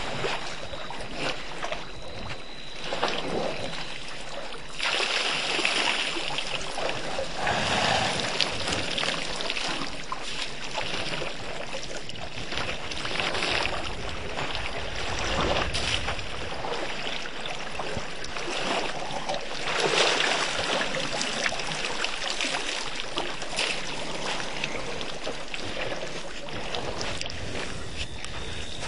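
Irregular splashing and sloshing of water as African elephants drink at a waterhole. A low rush of wind on the microphone comes about halfway through.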